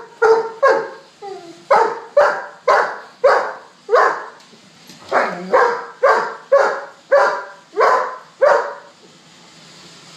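Black Labrador barking repeatedly in deep, sharp barks at a Roomba robot vacuum, about two barks a second with two short breaks, stopping near the end.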